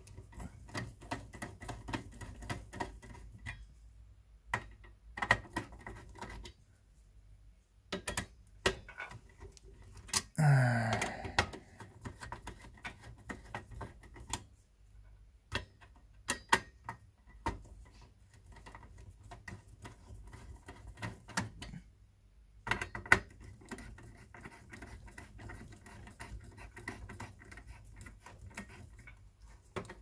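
Screwdriver turning the captive screws of an HPE ProLiant DL380 Gen9 CPU heatsink: runs of rapid dry clicking and ticking, broken by short pauses. About ten seconds in comes a brief louder sound that falls in pitch.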